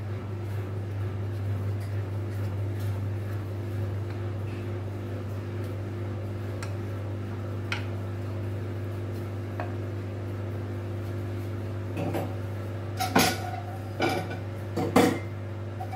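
Naan dough being rolled out with a wooden rolling pin on a stone countertop, faint under a steady low hum. A few sharp knocks come near the end, as the rolling pin is handled and set down on the counter.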